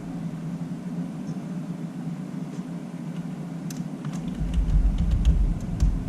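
A steady low hum, with a deeper rumble joining about four seconds in, and several short sharp clicks in the second half, like a computer mouse being clicked.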